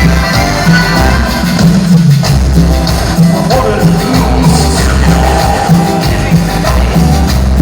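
Band playing Latin dance music with a steady, heavy bass beat.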